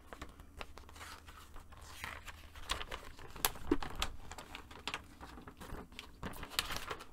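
Paper rustling and crinkling as a large folded paper sheet is pulled from an envelope and unfolded, in a run of short, irregular crackles.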